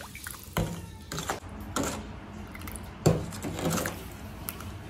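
Metal spoon stirring a thin brine in a stainless steel bowl, scraping and clinking against the sides several times, loudest about three seconds in.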